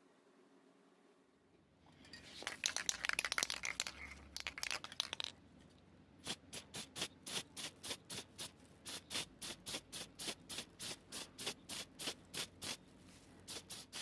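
Hand work on a small part: a few seconds of scratching and rapid clicking, then a steady run of sharp clicks or taps, about three a second.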